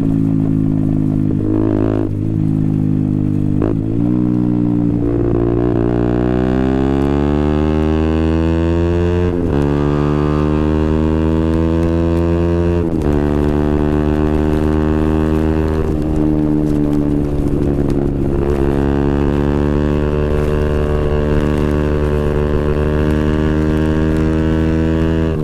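KTM Duke 125's single-cylinder four-stroke engine running through a Scorpion exhaust with the dB killer removed, heard on board while riding. The revs climb and drop sharply twice as it shifts up, then hold a steady, slowly rising cruise.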